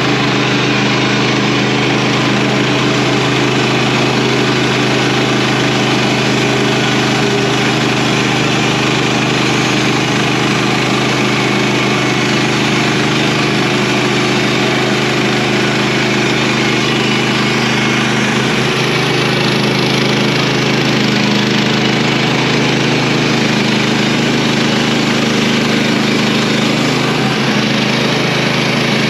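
Sawmill engine running steadily at a constant speed.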